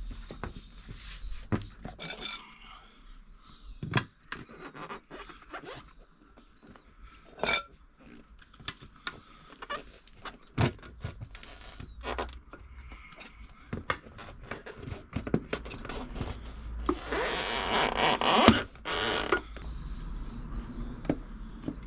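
Hand work on a motorcycle wheel and tyre: scattered clicks and knocks of tools and parts being handled, with a longer scraping noise about seventeen seconds in.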